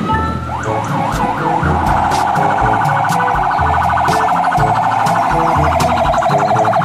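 Toy fire engine's electronic siren: a rising wail, a few quick up-and-down sweeps, then a fast warbling yelp held for several seconds that stops near the end.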